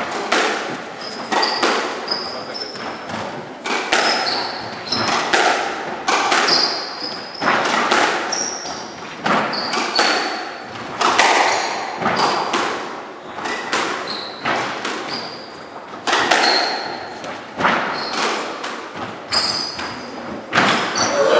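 Squash rally: the ball struck repeatedly off racquets and the court walls, sharp hits roughly once a second, with short high squeaks from shoes on the wooden court floor between them.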